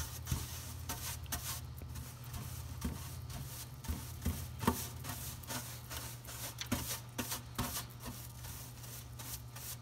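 Small hand brush sweeping oil-soaked peat absorbent across a metal tray, irregular scratchy brushing strokes over a steady low hum.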